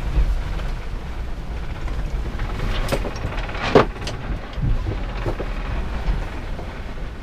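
Low rumble of wind and sea on a sailboat in heavy weather, heard from inside the cabin, with a few short knocks and rattles; the sharpest knock comes just before four seconds in.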